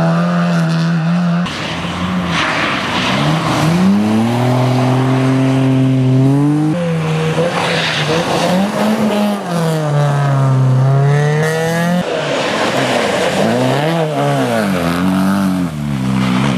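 Rally car engines revving hard, pitch climbing and dropping as the drivers accelerate, shift and lift through corners, including a Honda Civic. The sound changes abruptly every few seconds as one car gives way to the next.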